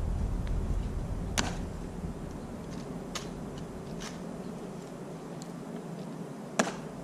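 A few sharp, separate clicks from the Tomb Guard sentinels' drill, the loudest about a second and a half in and again near the end. Wind rumbles on the microphone for the first couple of seconds, then eases.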